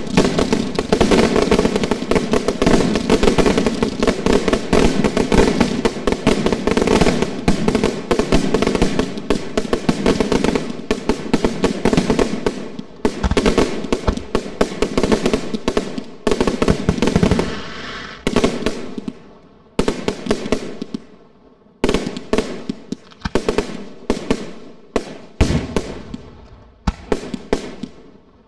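Aerial firework shells from an Italian-style display bursting. The bangs come in a dense, continuous barrage at first, then after about 17 seconds thin out into separate sharp bangs about a second apart, each with a fading tail, growing quieter toward the end.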